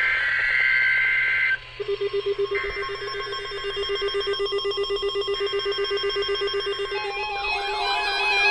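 Emergency Alert System tones on a weather radio broadcast: blocks of shrill electronic data tones at two high pitches, switching on and off about every second, over a low, evenly pulsing tone, with a warbling tone coming in near the end.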